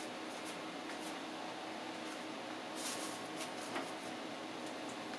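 Upgraded desktop PC running with a new CPU cooler, its fan giving a quiet steady hum, with a few faint clicks and a brief soft rustle about three seconds in.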